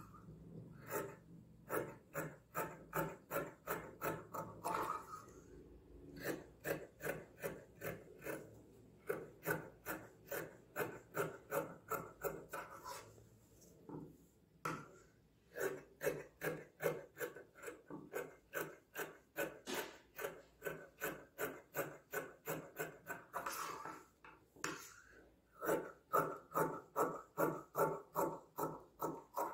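Tailor's scissors snipping through stitched fabric layers in runs of about three cuts a second, with a few short pauses, trimming off the excess seam allowance after sewing.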